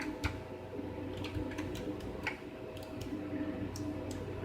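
Sparse, irregular light clicks and taps from an OmniKey Ultra mechanical keyboard being handled, over a faint steady hum.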